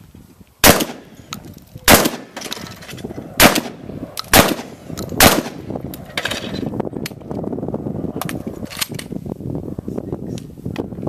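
Five shotgun shots over about four and a half seconds, each a sharp blast with a short ringing tail. After that, quieter clicks and rattles as shells are loaded into the shotgun's magazine tube.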